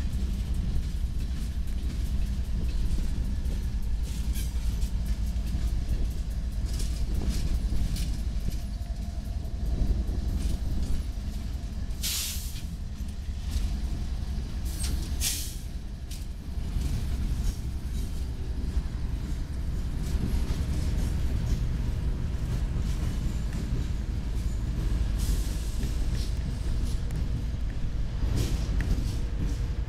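Diesel-electric locomotives of a BNSF coal train, a GE ES44AC and an EMD SD70MAC running as rear distributed power, passing close by: the engines run with a steady low rumble over the sound of wheels on the rails. Two brief bursts of noise come about halfway through.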